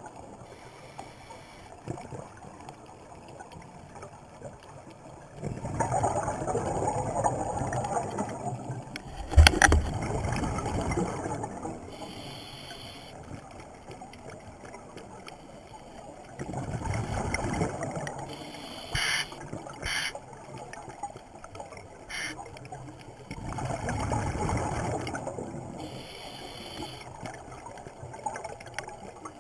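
Scuba diver breathing through a regulator underwater: a short hiss on each inhale and a rumble of exhaled bubbles every six or seven seconds. A sharp knock about nine and a half seconds in is the loudest sound.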